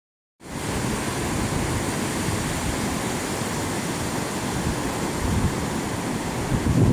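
Ocean surf breaking and washing up a flat sandy beach: a steady rushing noise with a choppy low rumble, starting about half a second in.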